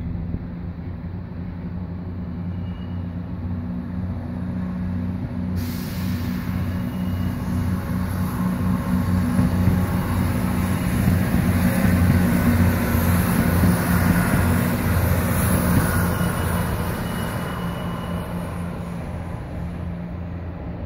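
ScotRail Class 170 Turbostar diesel multiple unit passing on the line. Its low engine hum grows to its loudest a little past halfway through, then fades as it moves away. A high hiss from the wheels and rails comes in suddenly about a quarter of the way in.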